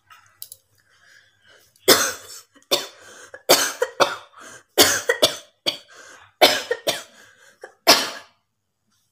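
A person coughing over and over, about ten forceful coughs in quick groups, with faint breaths between them. The coughing is put on for a coughing challenge, not a sign of illness.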